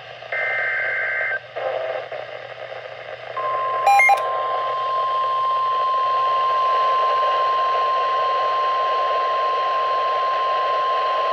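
Emergency Alert System SAME header data burst, a buzzy two-tone warble that ends about a second in. It is followed by a short, loud blip about four seconds in. The NOAA Weather Radio 1050 Hz warning alarm starts about three seconds in and holds as one steady, unbroken tone, all heard through radio static.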